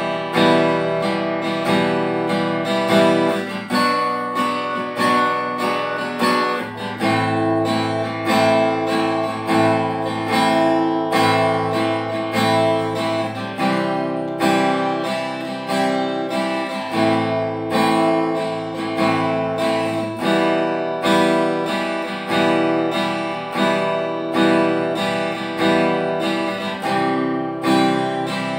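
Cort AD810 OP steel-string dreadnought acoustic guitar strummed in a steady rhythm, moving through a chord progression with a change every few seconds.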